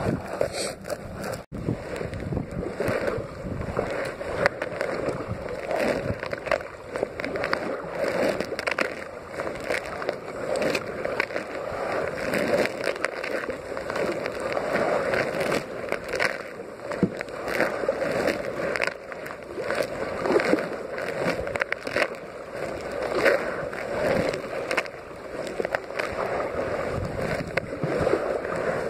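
Kayak paddle strokes splashing and sloshing through choppy lake water, with wind rushing over the phone's microphone.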